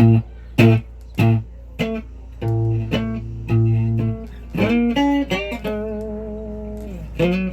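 Guitar played solo: a run of single plucked notes, then a note that slides up in pitch and one held for over a second near the end, over a steady low hum.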